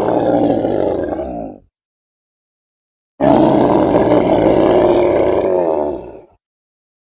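Two edited great-ape roaring calls from an orangutan and Gigantopithecus sound-effect set. Each is a low, pitched, drawn-out call. The first fades out about a second and a half in, and after a gap of dead silence the second starts about three seconds in and lasts about three seconds.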